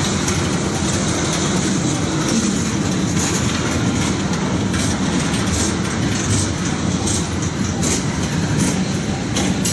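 Slow-moving freight train of tank cars and covered hoppers rolling past at close range: a steady rumble of steel wheels with irregular clicks as the wheels cross rail joints.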